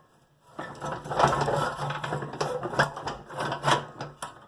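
Rapid, irregular clicking and rattling as the parts of a steel Tonka loader toy are handled and worked, starting about half a second in.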